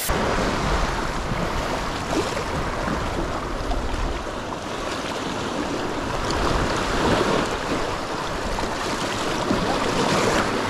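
Small sea waves washing and breaking over shoreline rocks, a steady surf noise with wind rumbling on the microphone.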